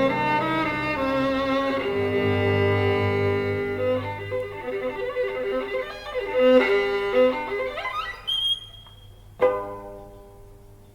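Violin music with bowed-string accompaniment, played from a record through Yamaha NS-1 loudspeakers. Long notes with vibrato, an upward slide about eight seconds in, then a sudden chord that dies away, the music fading near the end.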